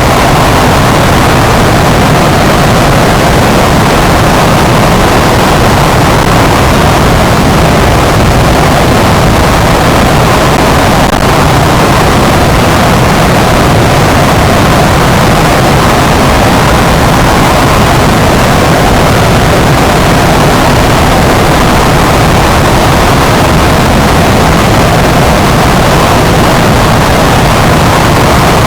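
Loud, steady harsh noise like static, unbroken throughout, with a stronger band in the middle range.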